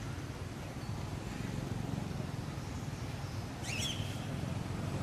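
Steady low outdoor rumble, with one short, high chirping call about three and a half seconds in.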